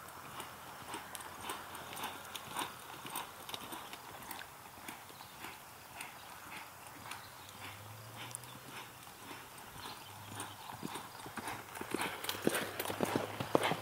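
Hoofbeats of a ridden horse loping around a dirt arena, a steady run of dull thuds in the footing that gets louder about twelve seconds in as the horse passes close.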